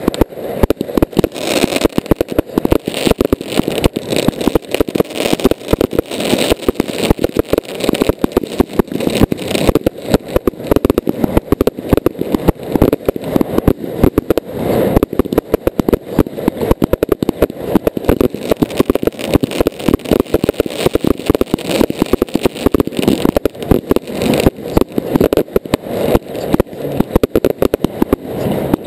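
Fireworks going off at close range: a dense, unbroken run of rapid bangs and crackles as fountains, rockets and aerial shells fire together.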